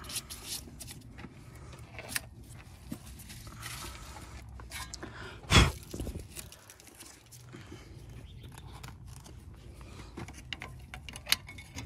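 Scattered light clicks and clinks of hand tools being handled, with one sharp knock about five and a half seconds in.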